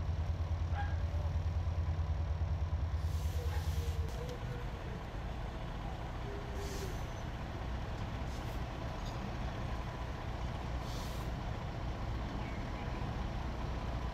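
Heavy diesel fire-apparatus engine running, loud and throbbing for about the first four seconds, then dropping to a steadier, lower rumble. Several short air-brake hisses come over it.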